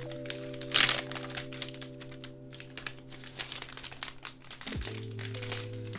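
Packaging crinkling and rustling as it is handled and opened by hand, in irregular crackles with one loud crackle about a second in.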